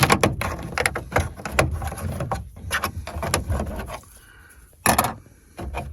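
Chevy Silverado's plastic passenger-side dash air vent being worked loose by hand from behind: a run of plastic clicks, scrapes and rattles, then a sharper knock about five seconds in.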